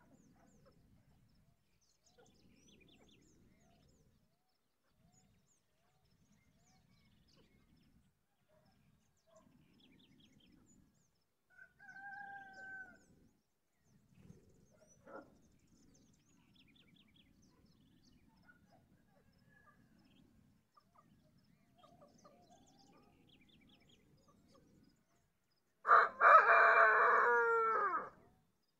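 A rooster crowing once, loudly, near the end: a cock-a-doodle-doo of about two seconds that drops in pitch as it ends. Earlier there are a few fainter short calls.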